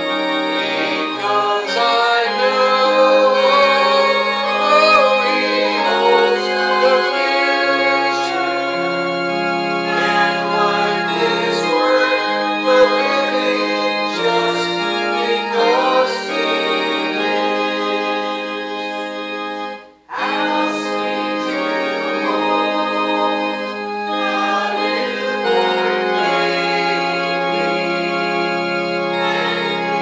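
Organ playing a hymn in long held chords, with voices singing along. The music stops briefly about two-thirds of the way through, then starts again, as between verses.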